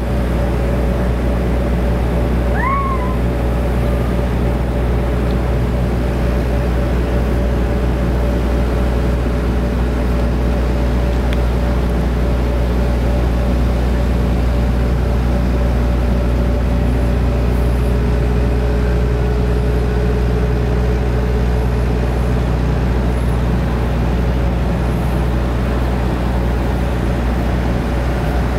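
Steady, unchanging low mechanical drone. About three seconds in, one short call rises and falls in pitch.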